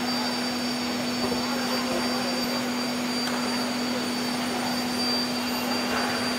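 SKX-CNC-1200 aluminium profile CNC drilling and milling machine running with a steady mechanical hum and a constant tone, over an even background noise.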